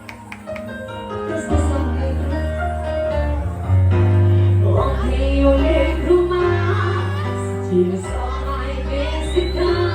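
Forró band playing live: a heavy bass line moving through held notes under sustained instrumental melody, with singing from about halfway in.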